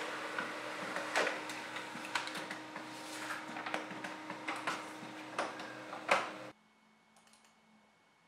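Canon imageCLASS MF113W laser printer running with a steady hum as a freshly printed page is handled, with sharp paper crackles and rustles over it. The sound cuts off suddenly about six and a half seconds in.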